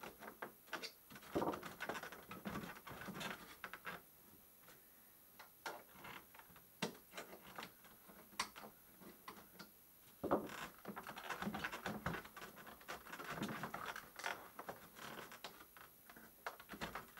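Faint handling noise from a plywood shipping crate: scattered light clicks and taps with short stretches of rustling and scraping as hands work at its metal clips and edges.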